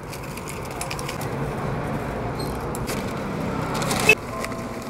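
Dry twigs and newspaper being handled and laid into a small metal bucket stove to start a wood fire: rustling with scattered small snaps and clicks, a sharper click about four seconds in, over a steady background hiss.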